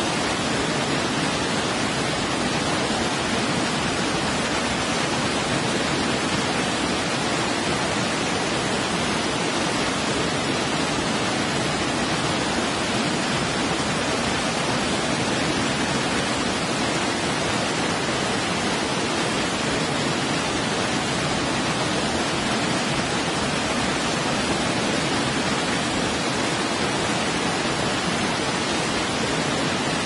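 Waterfall and rock cascades rushing steadily, an even, unbroken hiss of falling water.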